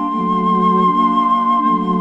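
Background music: a single high note held over lower sustained chord notes that shift every second or less.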